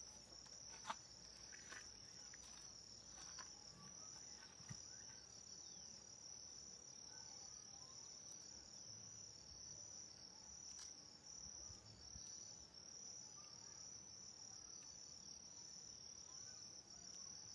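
Faint, steady high chirring of insects that pulses evenly, with a few soft clicks.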